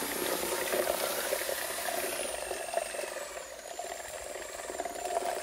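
Corded power drill with a whisk paddle attachment running steadily as it churns plaster in a plastic bucket, its motor whine dropping in pitch about two seconds in and then wavering as the speed changes.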